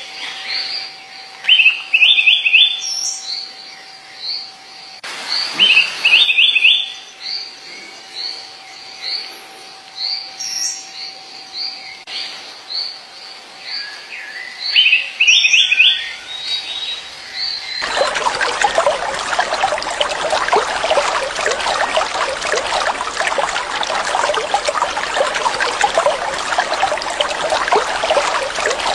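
A songbird singing: a short high note repeated roughly once a second, broken three times by a quick run of lower notes, over a faint steady tone. About two-thirds of the way through, it cuts suddenly to the steady rush of running water.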